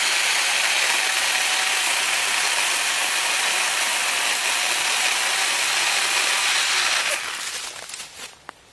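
Small electric chainsaw running and cutting into brush stems, a steady loud motor and chain noise that stops abruptly about seven seconds in. Quieter rustling of cut branches follows near the end.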